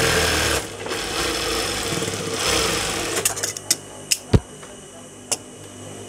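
Industrial lockstitch sewing machine stitching: a fast run that stops about half a second in, then a softer run of stitching until about three seconds in. After that come several sharp clicks and one louder knock about four seconds in as the work is handled at the machine.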